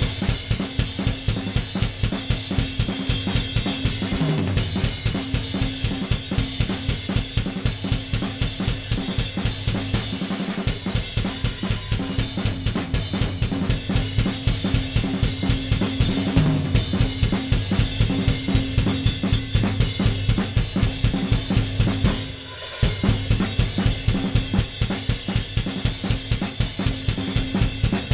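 Recorded rock drum kit playing back, with kick, snare and cymbals in a fast, steady beat, run through a Drawmer 1976 saturation and stereo-width processor as saturation and then width are added. The beat breaks off briefly about ten seconds in and again a little past twenty seconds.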